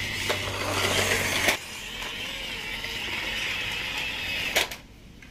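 Small electric motor and gearing of a radio-controlled toy construction vehicle whirring steadily. There is a sharp click about a second and a half in and another near the end.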